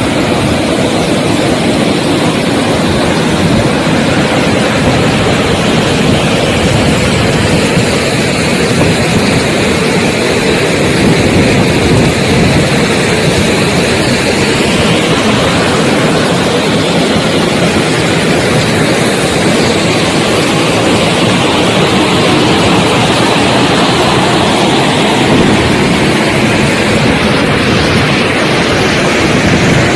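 Steady, loud rushing of a fast brown river's water close to the microphone, with no breaks or changes.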